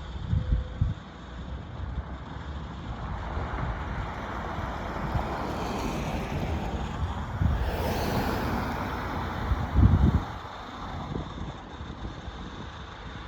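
A vehicle passing by, its noise swelling to a peak about two-thirds of the way through and then fading, with wind buffeting the microphone.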